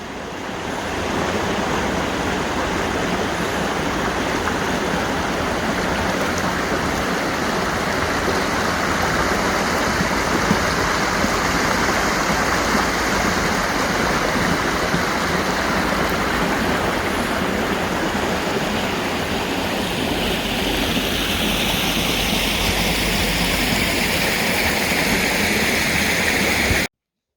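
Steady rushing of water flowing in a stream, which cuts off suddenly near the end.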